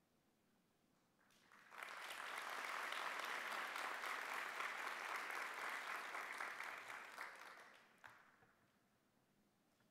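Audience applauding: the clapping starts about a second in, swells quickly, holds, and dies away around eight seconds in.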